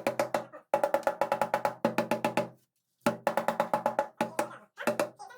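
Music with a fast rhythm of wood-block-like percussive strikes over a pitched tone, pausing briefly about two and a half seconds in.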